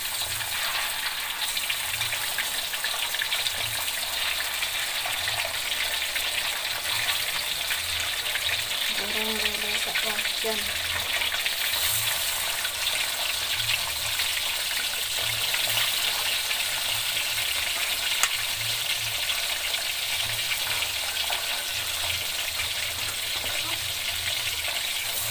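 Whole catfish frying in hot oil in a wok: a steady, even sizzle, with a sharp click about halfway through as metal tongs lay more fish in.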